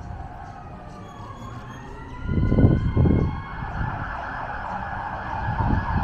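Distant emergency-vehicle siren, its pitch rising over the first two seconds and then holding a steady wail. Two low thumps come near the middle.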